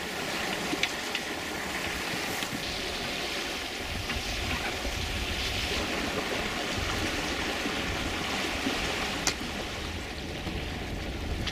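Steady rush of water along the hull and in the wake of a 1978 Islander Bahama 30 sailboat under way, mixed with wind noise.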